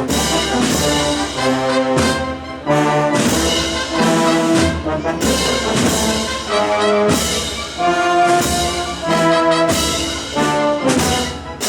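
Brass-led marching band (banda de música) playing a slow processional march, sustained brass chords with note changes and short breaths between phrases.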